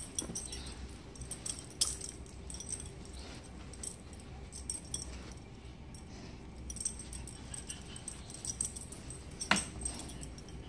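Mastiff puppy chewing and nosing at itself, with faint scattered metallic clinks and small clicks as it shifts; a sharper click comes about nine and a half seconds in.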